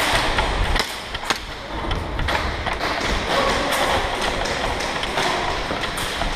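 Irregular thuds and sharp clicks of an airsoft game: running footsteps on concrete mixed with scattered airsoft gun shots and BB hits, over a steady noisy hall background.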